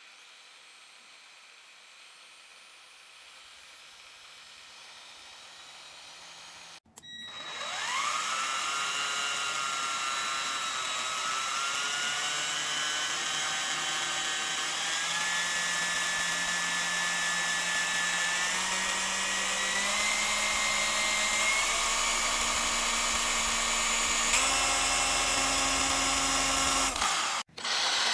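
A cordless power tool's electric motor running and stepped up through its speed settings, its whine rising in pitch at each step. The first few seconds hold a quieter unit; after a cut about seven seconds in, a much louder unit takes over and climbs through about five speed steps.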